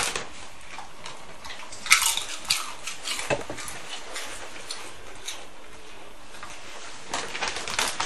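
A dog crunching and chewing a potato crisp: sharp, irregular crunches, loudest about two seconds in, then a quieter stretch and a few more crunches near the end.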